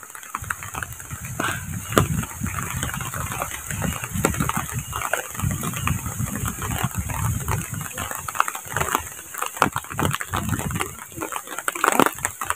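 Wind gusting on the microphone in irregular low rumbling surges, over a steady hiss of light rain with scattered sharp ticks.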